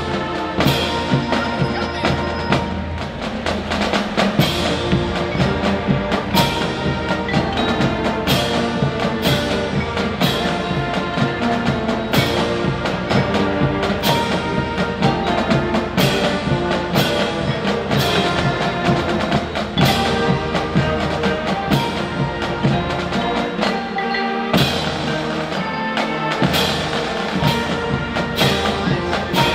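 Music with a steady percussive beat.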